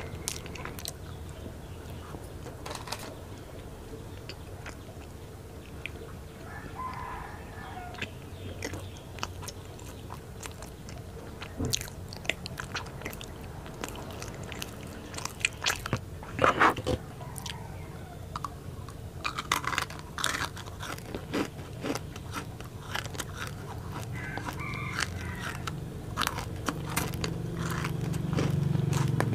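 Close-miked chewing of a flaky Thai pia pastry with salted egg yolk filling: wet mouth sounds and scattered sharp clicks over a low hum, loudest a little past halfway.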